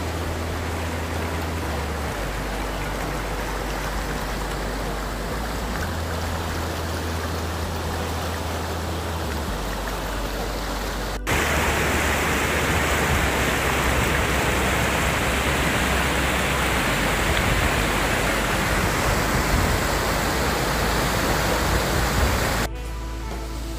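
Fast mountain river rushing over boulders in rapids, a steady rush of water. About eleven seconds in it jumps to a louder, closer rush.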